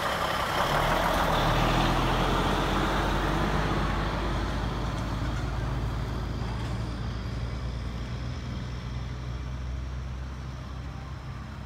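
Volvo semi truck's diesel engine running as the truck drives slowly past close by. It is loudest in the first couple of seconds, then becomes a low, steady engine drone that fades as the truck moves away.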